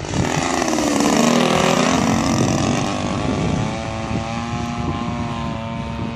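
Engine and propeller of a radio-controlled Sbach aerobatic model plane passing close by at speed: a loud buzzing drone whose pitch falls as it goes past, then settles to a steady drone as the plane climbs away.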